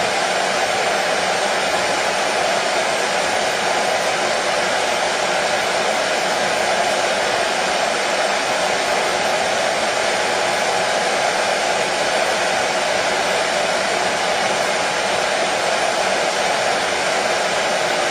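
Hair dryer running continuously, a steady rushing noise that never changes in pitch or loudness, used as white noise.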